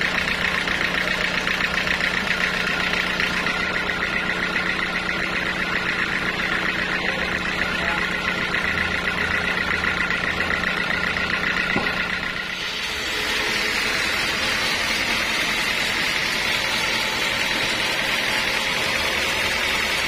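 Band sawmill's drive running steadily, idling without cutting while a teak log is set on the carriage. About twelve seconds in the steady low hum drops away and a higher, hissier running sound takes over.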